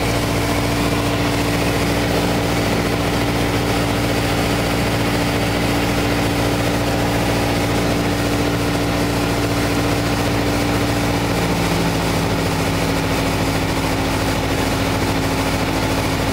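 Piper PA-28-181 Archer's four-cylinder Lycoming engine and propeller droning steadily, heard inside the cockpit. Its pitch steps down slightly about eleven seconds in.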